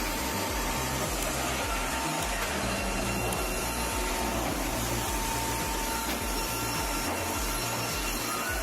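Steady sawmill machinery noise, saws and log handling running continuously, over background music with a stepping bass line.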